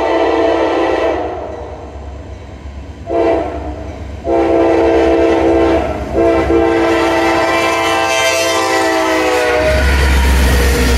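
Norfolk Southern diesel locomotive's air horn sounding several blasts: a short one, then long ones, the last held long and dropping in pitch as the locomotive passes. It cuts off near the end, leaving the deep rumble of the diesel engine and the wheels of the double-stack container train rolling past.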